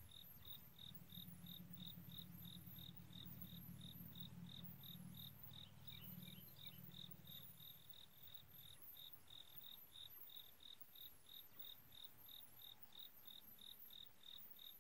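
Faint crickets chirping in an even rhythm, about three or four chirps a second, over a low hum that fades out about eight seconds in.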